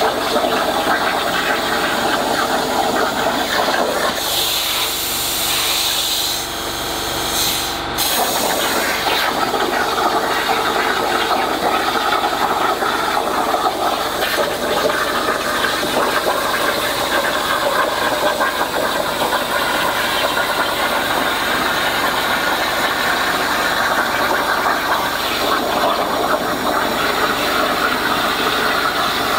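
Hypertherm plasma torch on a CNC table cutting steel plate: a loud, steady hissing rush of the plasma arc and its air. About four seconds in the sound changes for a few seconds and ends with a sharp crack near eight seconds, then the steady hiss goes on.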